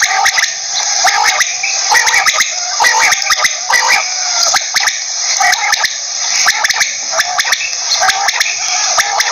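Quail calling over and over in short, quick notes, with a steady hiss and scattered clicks behind.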